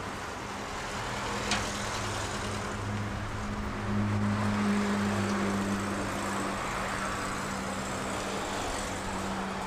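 Downtown street traffic: a steady wash of passing cars with a vehicle engine running as a low steady hum. One sharp click about a second and a half in.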